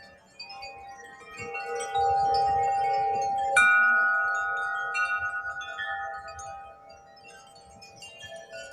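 Wind chimes ringing in a gust: several tuned tubes sound together, building about two seconds in, with the loudest strike about three and a half seconds in ringing on and slowly fading, then softer chiming near the end.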